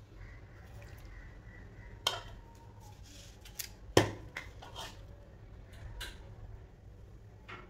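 Scattered clicks and knocks of kitchen utensils and dishes being handled, about half a dozen light taps with one sharper knock about four seconds in.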